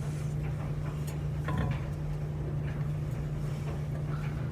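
Allen key turning the seat-post clamp bolt loose on a BMX frame: a couple of brief metallic clicks about a second in, over a steady low hum.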